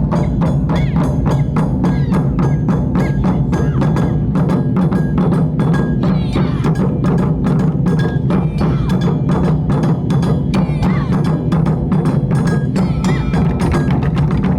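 Japanese taiko drum ensemble playing fast, steady, dense drumming, with short high ringing tones sounding over the strikes.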